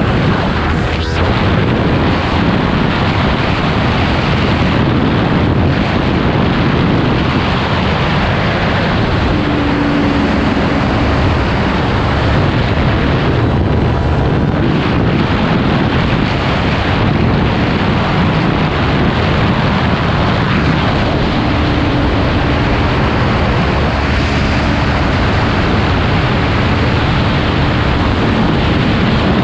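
Heavy wind noise on the microphone at speed on a 2018 Kawasaki Ninja 400, a parallel-twin sport bike with a slip-on exhaust, with the engine running underneath it. The wind rush nearly buries the engine, whose note surfaces only faintly in a couple of places.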